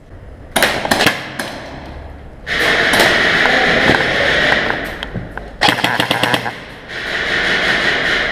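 Airsoft gun firing in full-auto bursts: a short burst about half a second in, a long burst of about two and a half seconds, then two more shorter bursts.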